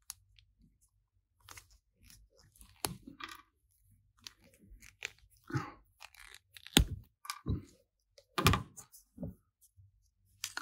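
Small plastic action-figure parts being handled, pulled apart and fitted together: scattered clicks, creaks and plastic rubbing on plastic, with a few louder sharp clicks past the middle.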